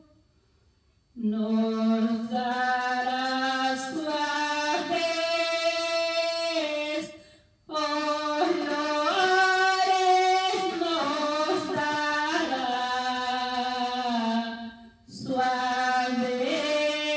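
A woman singing a Spanish Christian praise song unaccompanied, in long sustained phrases that start about a second in, with short breaks for breath about halfway and near the end.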